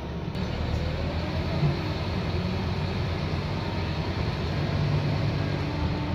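Scania K230UB single-deck bus heard from inside the passenger saloon: its five-cylinder diesel engine runs steadily with a low rumble while under way. About a second in, a faint whine rises in pitch.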